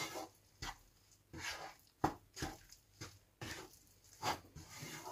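Spatula scraping and stirring thick rice-flour dough in a non-stick pan, in quick repeated strokes about two a second. The flour is being worked into the hot water to make the steamed-dough casing (ukad) for modak.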